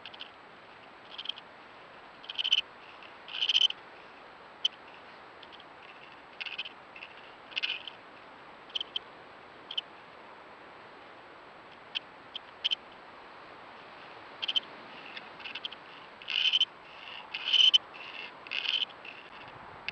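Repeated short, high-pitched squeaking calls at irregular intervals, some in quick clusters and a few drawn out to about half a second, over a steady hiss. The recordist thinks they may be yet-to-emerge badger cubs calling underground in the sett.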